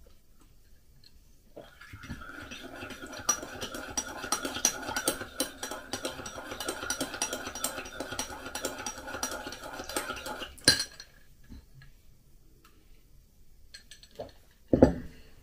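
Teaspoon stirring in a ceramic mug, rapid continuous clinking against the sides for about nine seconds, ending in one sharp click. A short, louder thud comes near the end.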